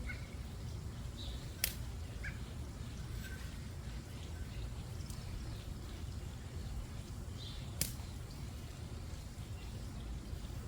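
Backyard ambience with a steady low rumble, a few short bird chirps, and two sharp clicks about six seconds apart.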